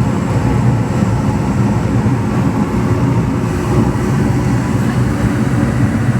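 York rooftop gas heating unit running: a steady low rumble of its blower and fired gas burners.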